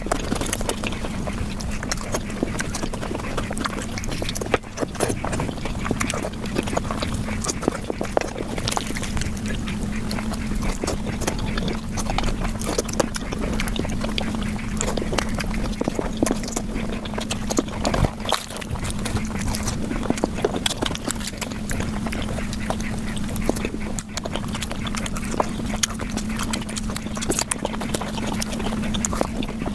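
Close-miked eating sounds of flatbread with curry, sped up five times: chewing, lip smacks and wet mouth noises run together into a dense, rapid chatter of clicks. A steady low hum sits underneath.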